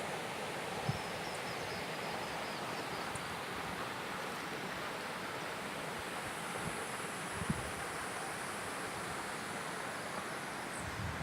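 Steady rush of water at a reservoir dam, with faint insect chirping for the first few seconds and two brief low thumps, about a second in and near the middle.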